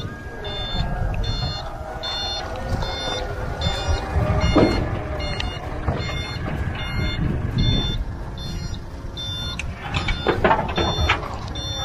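Recovery truck's warning beeper sounding about two and a half times a second over the low rumble of its engine as its winch pulls an overturned pickup upright. A couple of heavy knocks, about four and a half seconds in and again near ten seconds.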